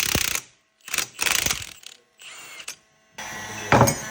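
Metal engine parts and tools clanking and rattling on the workbench during engine disassembly, in several separate bursts. It ends in a steadier rattle with one loud clank near the end.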